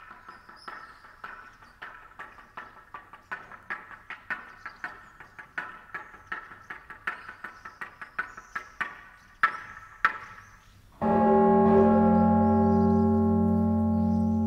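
A toaca (semantron) beaten with mallets in a quick, uneven rhythm of sharp ringing knocks, with two harder strikes near the end. Then a large church bell of nearly three tonnes is struck once, about eleven seconds in, and its deep, many-toned hum rings on.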